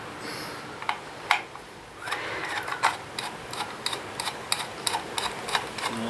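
Plastic clicking and tapping as a white plastic electrical back box is handled and turned over: short, sharp, irregular clicks, about two or three a second.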